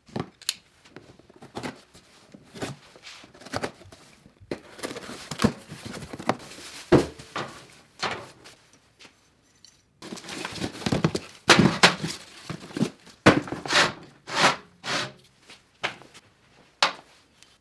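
Handling noise of a cardboard-boxed electric motor and the bare motor on a perforated steel workbench: a string of thunks and clunks as they are set down and moved, with rustling and scraping between. The sound drops out abruptly for a moment about ten seconds in, then resumes with louder knocks.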